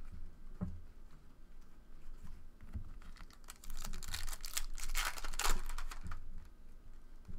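Foil trading-card pack wrapper being torn open and crinkled, with light clicks of cards being handled. The crackly tearing starts about halfway through, is loudest about two-thirds in, then dies away.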